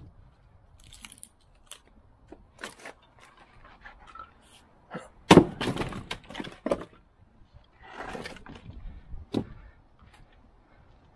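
Dry ponderosa pine round split with one hard strike about five seconds in: a sharp crack, then the split pieces clattering down. Lighter knocks of firewood being handled and set on the chopping block come before and after.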